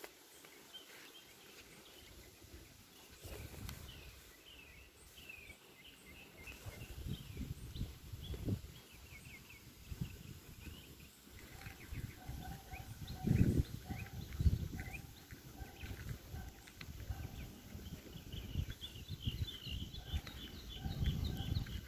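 Birds chirping in quick series of short falling chirps, busiest in the first few seconds and again near the end, over a low rumbling noise with two heavier thumps about two-thirds of the way through.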